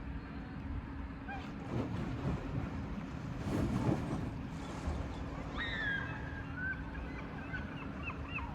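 A duck quacking a few times over a steady low rumble with a held hum. Near the end come a clear whistled bird call and several short chirps from a smaller bird.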